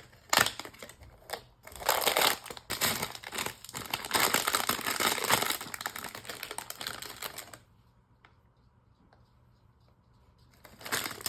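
Hands opening and handling toy blind-box packaging: crinkling and tearing of wrapper and cardboard, with many small clicks and taps. The handling stops about two-thirds of the way through.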